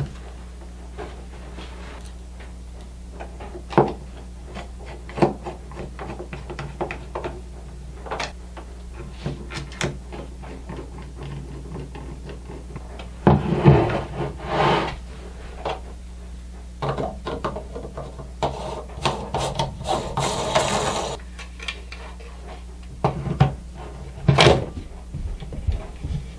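Parts of an old Craftsman router being fitted back together by hand: scattered clicks and knocks, with two longer stretches of rubbing and scraping about halfway through and later on.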